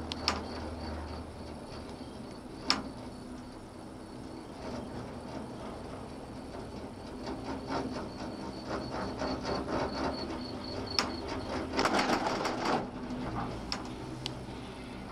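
Ride inside an eight-seat detachable gondola cabin: a steady hum with a few sharp clicks, then a growing run of clicks and clatter as the cabin's grip rolls over the tower's sheave rollers, densest about twelve seconds in.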